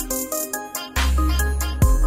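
Electronic background music: short synth notes over a beat with crisp percussion, the deep bass cutting out and coming back in about halfway through.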